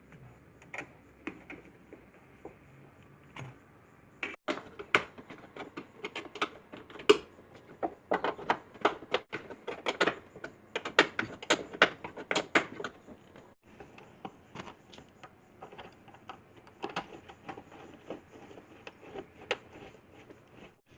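Irregular metallic clicks and taps of a wrench working a bolt back into a car door's check strap. The clicking is busiest from about four to thirteen seconds in, then lighter and sparser.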